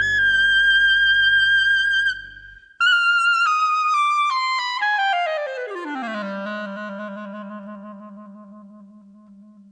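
Klezmer band's final chord: a high wind note with vibrato over bass and piano, cut off about two seconds in. A solo clarinet then plays a slow stepwise run down into its low register and holds a low note that fades away.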